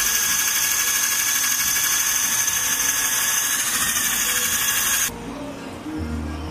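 Cordless drill spinning a small foam polishing pad against a car's painted bumper to buff out scratches: a steady high whine that cuts off about five seconds in.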